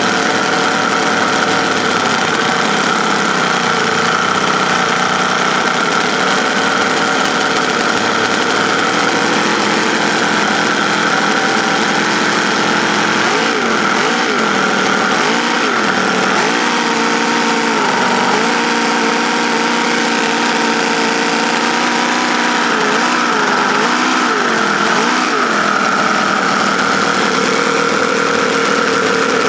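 Homemade V-4 model engine running, its speed swinging up and down several times in the middle stretch before settling back to a steady idle.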